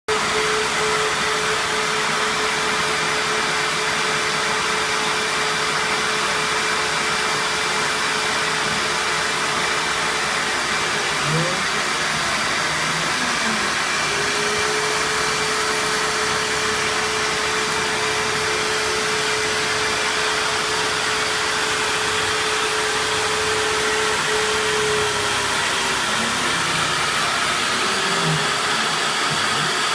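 CNC-converted Optimum BF20L milling machine running, a steady rushing noise with a level whine from its stepper motors during a feed move. The whine breaks off about eleven seconds in with short rising and falling glides as the axes change speed, holds steady again from about fourteen to twenty-five seconds, then glides again near the end.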